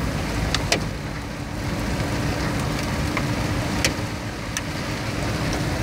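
Steady rush of wind and road noise from a moving vehicle heard through an open window, with a low steady hum under it. A few sharp clicks break through, two of them close together near the start.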